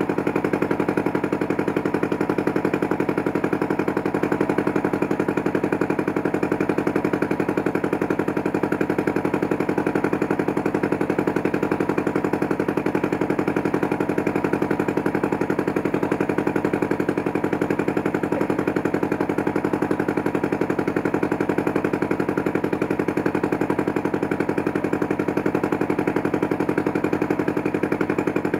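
Engine of a river boat running steadily underway, with a rapid, even chugging pulse.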